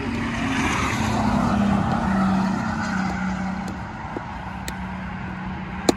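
A road vehicle driving past, its engine note sliding slowly down in pitch as the rushing noise swells and then eases off. A single sharp click near the end.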